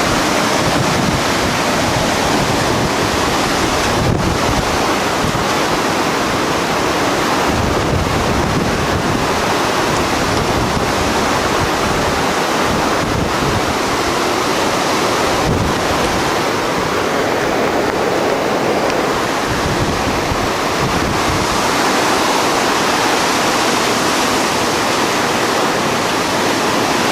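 Hailstorm with strong wind: a loud, steady roar of falling hail, with gusts buffeting the microphone.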